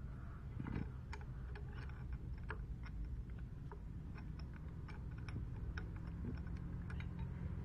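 Light, irregular clicks and ticks of a metal adapter plate being handled and lined up against the magneto side of a motorcycle engine, over a steady low hum.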